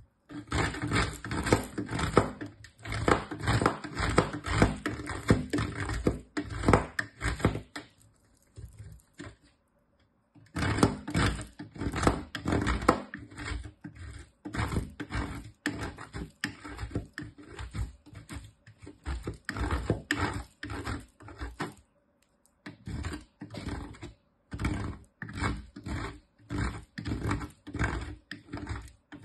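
A bar of soap grated on a metal box grater: rapid back-and-forth rasping strokes, about three a second, coming in runs that break off briefly twice, about eight seconds in and again a little past twenty seconds.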